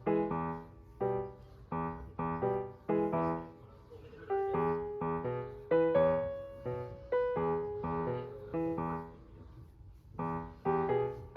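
Background piano music: a light melody of struck notes and chords, each fading away, about two a second, pausing briefly about nine seconds in before picking up again.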